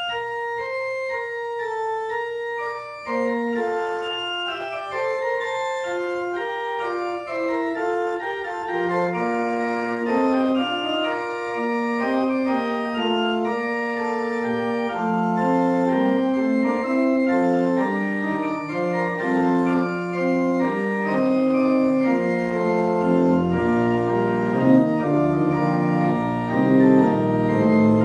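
Church pipe organ playing the postlude after the benediction: held chords under a moving melody, growing fuller and a little louder with lower bass notes in the second half.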